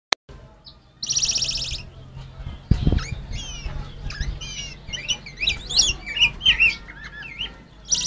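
Black-backed grosbeaks (rey del bosque) singing against each other in a fight: a fast rapid trill about a second in and again at the end, with a run of rich warbled whistled notes between. A single low knock sounds near three seconds.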